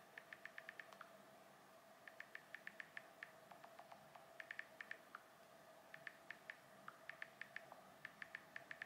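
Typing on an iPhone's on-screen keyboard: light clicks several times a second, in short runs with pauses between words, over a faint steady hum.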